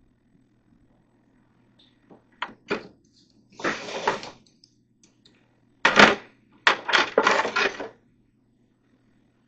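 Hard objects being handled: two light knocks, then about a second of rattling scrape. A sharp knock about six seconds in is followed by a second of clatter.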